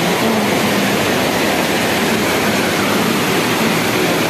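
Steady rushing noise inside a water treatment plant's filter house, from water flowing through the running filter beds and the plant's machinery.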